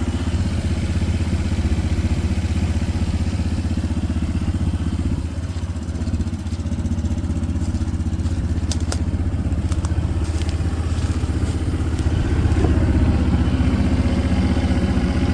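Small farm utility truck's engine running steadily, a low even hum. A few light clicks come about nine to ten seconds in.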